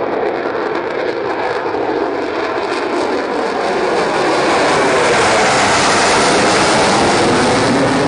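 Concorde's four Olympus 593 turbojets, loud jet noise as the airliner climbs out overhead. It swells about four seconds in as the aircraft passes above, with a sweeping, phasing tone.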